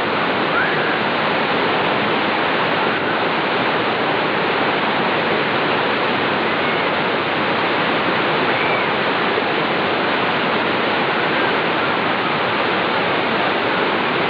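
River water rushing over rocks and rapids, a steady, even rush of white water with no breaks.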